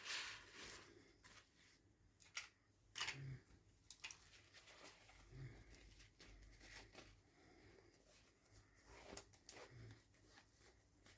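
Quiet handling of toy packaging during an unboxing: scattered crinkles, rustles and small sharp clicks, with a louder rustle at the start and sharper clicks around two and three seconds in and again near nine seconds.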